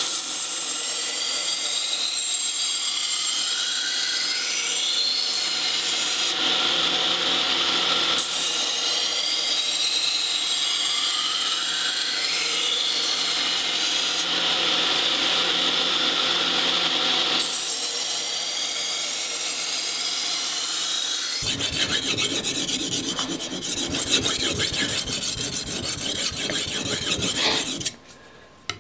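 Belt grinder putting the edge on a high-carbon steel kitchen knife, the blade held against the running belt with a whine that wavers in pitch. About 21 seconds in this changes to repeated scraping strokes of the blade across a sharpening stone.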